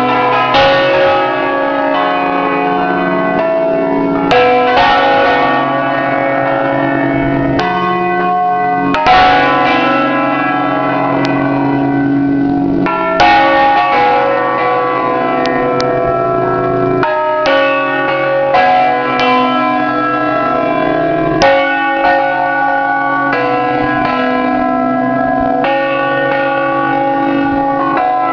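Solemn concert of eight bronze church bells tuned in C and hung in the Ambrosian system, heard close up in the bell chamber. The bells strike one after another at uneven intervals, their tones overlapping and ringing on, with a few heavier strikes standing out.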